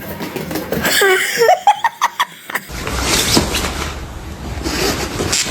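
A person laughing in short quick bursts, followed from about three seconds in by a steady low rumbling noise.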